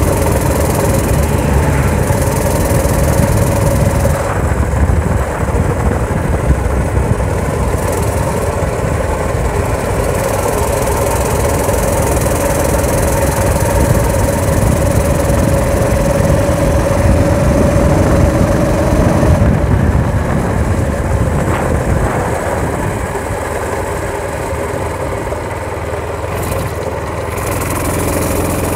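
Motorized bicycle's engine running while riding, fitted with a fibre-packed muffler. Its pitch holds steady for most of the ride, drops off about twenty seconds in, then picks up again near the end. Wind buffets the microphone.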